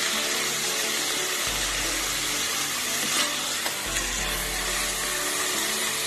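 Ground beef and onion sizzling in a stainless steel pot while a wooden spatula stirs them, with a couple of light knocks about halfway through. Soft background music plays underneath.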